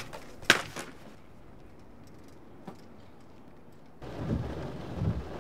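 A single sharp smack about half a second in, then low hiss. From about four seconds in, a low rumbling of a rainstorm and thunder heard from inside a moving car.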